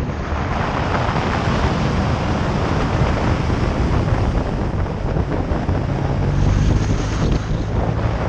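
Wind rushing over the microphone of a moving motorcycle, with the engine's steady low drone underneath that swells slightly about six seconds in.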